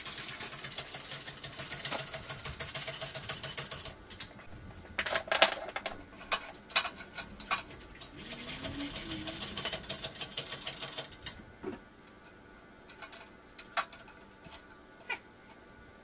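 Ratcheting hoist clicking rapidly as it lifts an engine onto a hanging scale. There are two long runs of quick clicks, one at the start lasting about four seconds and another from about eight to eleven seconds in, with separate single clicks between and after.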